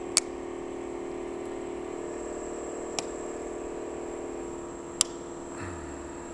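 Three sharp clicks spread over about five seconds as a screwdriver works at the points cover of an aircraft engine's magneto to pry it loose, over a steady background hum.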